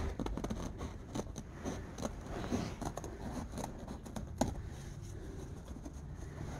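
Scissors snipping through tent canvas in a string of short, irregular cuts, with the cloth rustling as it is handled.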